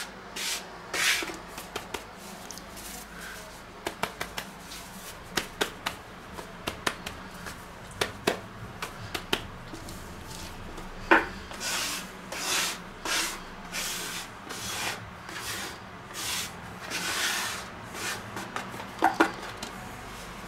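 Plastic dough scraper scraping semolina across a wooden cutting board, in short rubbing strokes, with many sharp taps of the scraper on the wood, the loudest about halfway through and near the end.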